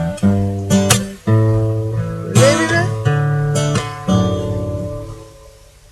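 Acoustic guitar strumming slow chords in a song's instrumental outro, each chord left to ring; the sound dies away over the last second or so as the piece ends.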